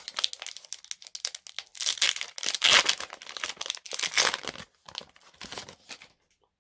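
Foil Pokémon Hidden Fates booster pack wrapper crinkling and tearing as it is ripped open, in uneven bursts that thin out and stop near the end.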